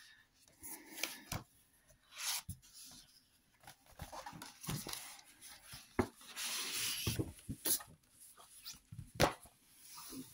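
Hands handling a large hardcover book: the paper dust jacket rubbing and sliding off the cloth-covered boards, with scattered light knocks and taps as the book is lifted, turned and set back down on the table.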